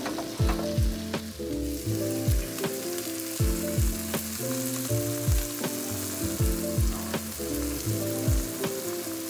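Cheese melting on top of sliced steak, peppers and onions sizzling in a frying pan, a steady hiss that grows stronger about two seconds in. A background music track with held bass notes and deep falling kicks about once a second plays over it.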